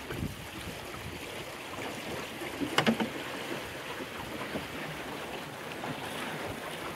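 Water splashing and rushing along the hull of a small Welsford Navigator sailboat running downwind in stiff wind, with wind on the microphone. A few sharp knocks about three seconds in.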